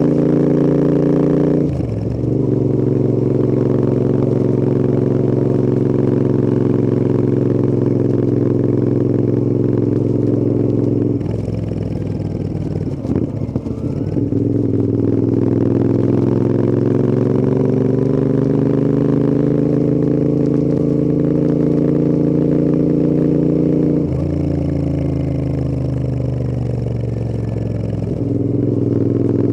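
Royal Enfield Interceptor 650's parallel-twin engine and exhaust under way, pulling through the gears. There is a quick gear change about two seconds in. Around the middle comes an off-throttle stretch with irregular crackle, then the engine note climbs steadily under acceleration, dips near the end and rises again.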